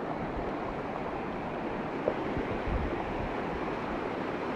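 Floodwater rushing in a steady noisy wash, with a brief knock about two seconds in.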